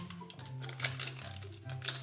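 Background music with a stepping bass line, over crinkling and rustling of an egg's wrapper being torn open by hand, with sharper crackles about a second in and near the end.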